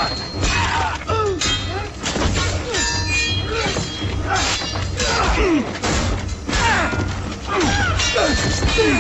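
TV battle-scene soundtrack: repeated sharp impacts and clashes, with short cries from fighters, over orchestral score.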